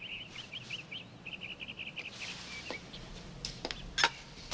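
Bird chirping in a quick run of short, high notes, followed by a few sharp clicks, the loudest about four seconds in.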